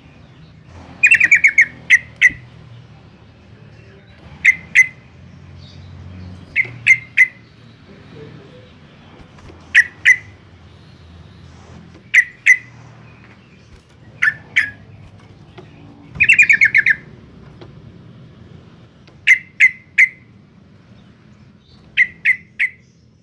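Yellow-vented bulbul calling in repeated bursts of two or three sharp, quick notes every two to three seconds, with a longer rapid chattering run about a second in and again around sixteen seconds. A faint low hum sits underneath.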